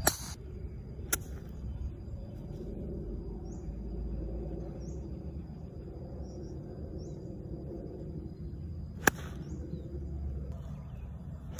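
A golf club striking the ball twice, each strike a sharp crack: a driver off a tee right at the start, and a fairway shot about nine seconds in. There is a lighter click about a second in. Between the strikes, birds chirp and an insect makes a steady high drone over a low outdoor rumble.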